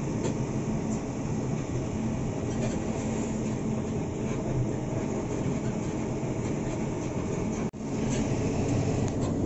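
Isuzu NQR medium bus on the move, heard from inside the cabin: steady, low engine and road noise, with a brief dropout about three-quarters of the way through.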